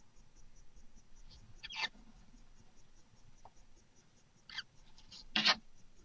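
Barn owls in a nest box giving a few short calls: one sliding down in pitch about two seconds in, a couple more around the fourth and fifth seconds, and the loudest, a short harsh one, near the end.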